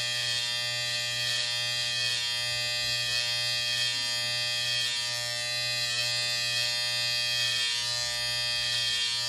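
Electric hair trimmer buzzing steadily, held against the temple and sideburn to edge the hairline.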